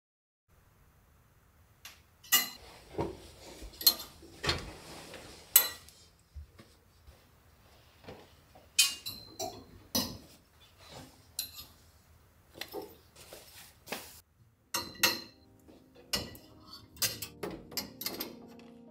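Metal clothes hangers clicking and clinking against a wardrobe rail as hanging clothes are pushed along it: an irregular string of sharp clicks that starts about two seconds in.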